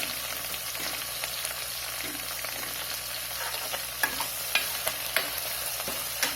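Chopped onions sizzling in hot oil in a pressure cooker while being stirred, with a few sharp clicks of the spoon against the metal pot.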